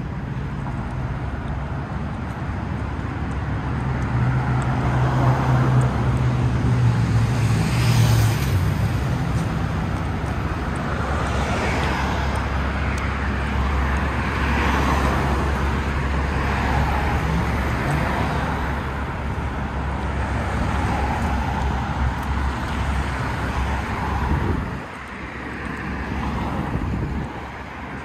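Road traffic: cars passing one after another, their tyre and engine noise swelling and fading every few seconds over a steady low rumble, with one vehicle's engine hum standing out for a few seconds starting about four seconds in.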